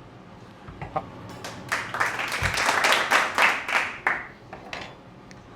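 Something dropped on the cook's work area: a quick run of clattering and rattling lasting about two and a half seconds, with a dull thud in the middle.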